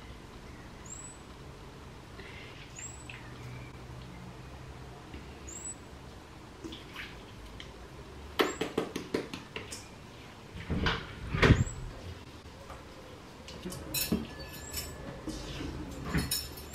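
A metal spaghetti server scraping and clinking against a stainless steel pan and plate as pasta is lifted out and served. The clinks come in scattered clusters, with the loudest knock about eleven seconds in, over low kitchen background.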